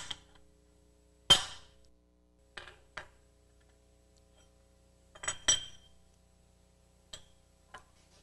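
Hammer blow on steel bar stock resting on a bushing driver, driving a new upper control arm bushing into its bore: a sharp ringing metallic clank about a second in. Lighter metal clinks follow a few times as the steel bar and driver are lifted off and the arm is handled.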